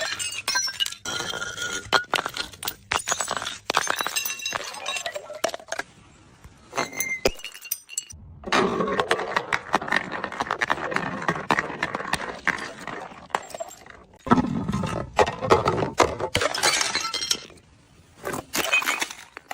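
Glass bottles smashing, with shards clinking and ringing, then long stretches of dense crunching and more breaking near the end.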